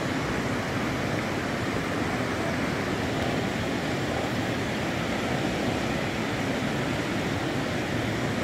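Steady, even rush of a fast, swollen, muddy river in flood.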